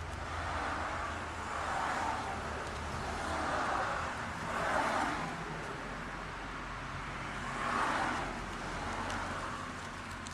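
Road traffic passing, several cars swelling up and fading one after another, over a steady low hum.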